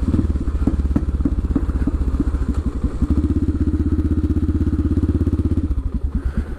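CCM DS 644's big single-cylinder four-stroke engine running as the bike rides along. About five and a half seconds in, its beat drops to a slow, even thump at idle as the bike comes to a stop, heard through the rider's crash-helmet microphone.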